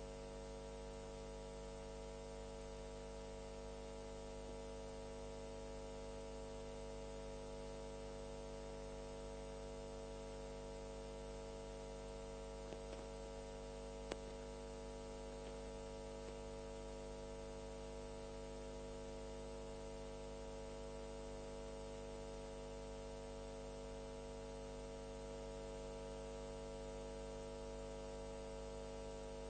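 Faint, steady electrical hum and buzz, a fixed set of tones that never changes, with two small clicks about halfway through.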